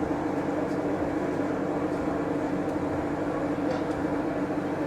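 Steady droning hum of a large store's background noise, even and unchanging throughout.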